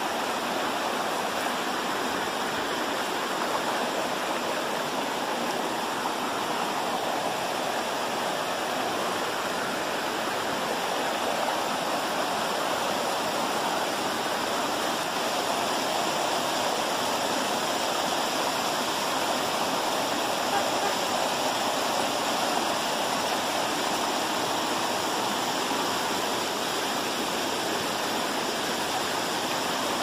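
A waterfall over 20 metres high, its water pouring over the rock lip and rushing down to the pool: a steady, unbroken rushing noise.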